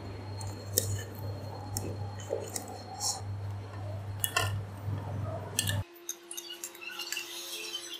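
Metal ladle clinking against a steel stockpot and a plate as boiled prawns are scooped out and served: a few sharp clinks spread out over a steady low hum, which stops abruptly about three-quarters of the way through, followed by lighter clatter.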